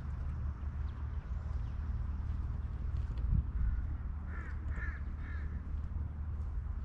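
A crow cawing three times in quick succession, over a steady low rumble with a brief thump a little before the calls.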